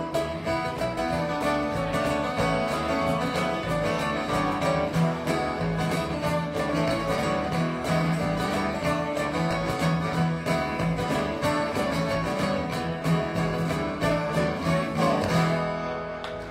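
Live acoustic band playing an instrumental passage: strummed acoustic guitars over an electric bass line, with a cajón keeping a steady beat. The music thins out near the end as the song winds down.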